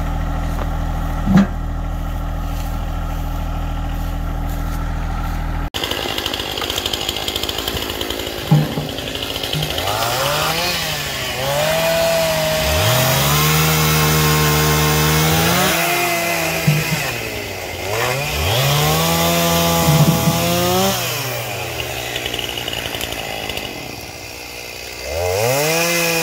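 A John Deere sub-compact tractor's engine idles steadily for about the first six seconds, with one knock. Then a gas chainsaw cuts fallen logs, revving up about five times, its pitch climbing and holding high in each cut and dropping back to idle between.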